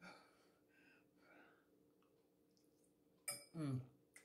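Near quiet for about three seconds, then a woman gives a short voiced murmur while eating, followed by a faint click just before the end.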